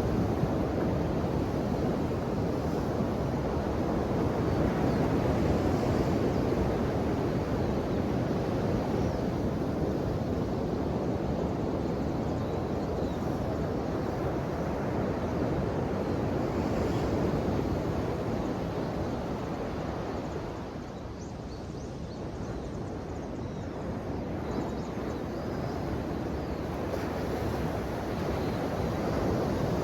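Ocean surf: waves breaking and washing in a steady rush that eases about two-thirds of the way through, then swells again.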